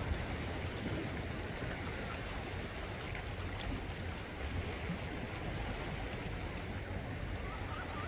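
Low sea waves washing and breaking over dark volcanic shore rocks, a steady surf wash with a low rumble underneath.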